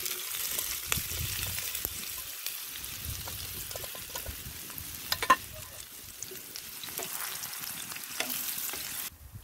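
Parboiled potato chunks sizzling in hot oil in a cast-iron frying pan over an open fire, with a sharp metal clink against the pan about five seconds in. The sizzling cuts off suddenly near the end.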